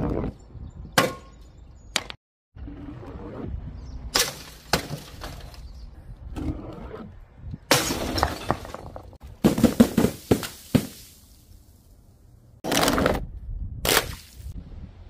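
An old CRT television's glass screen struck by balls dropped onto it: a series of sharp impacts with glass cracking and shattering. The densest run of crashes comes about ten seconds in, and a longer crunching crash follows near the end.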